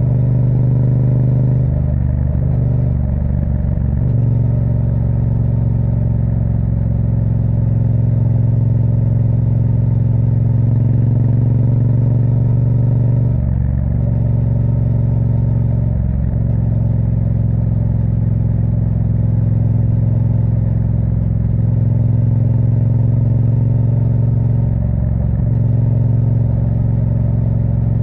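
Triumph Street Twin's 900 cc parallel-twin engine running while the motorcycle cruises along a highway, heard from the rider's position. The steady engine note dips and shifts briefly about four times, near the start, twice in the middle and again near the end.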